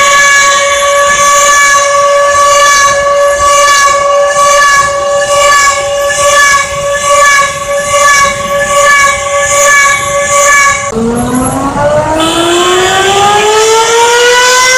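Warning siren sounding a loud, steady tone. About eleven seconds in the pitch drops suddenly, then winds back up in a slow rising glide.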